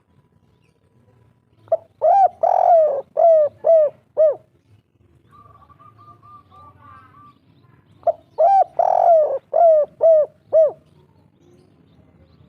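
Spotted dove (tekukur) singing its 'kuk 3' song: two phrases of hooting coos about four seconds apart, each a short note, a longer coo, then a quick run of short coos. A faint run of high twitters from another small bird comes between the phrases.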